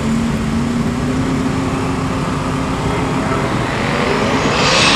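Twin-turbo drag-racing Mustang's engine running at the starting line with a steady note, then near the end a steeply rising whine as it gets louder and rougher while the car builds up for the launch.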